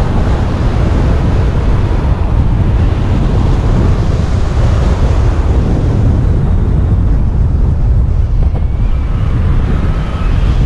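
Airflow buffeting the microphone of a paraglider pilot's camera in flight: a steady, heavy low rumble of wind noise.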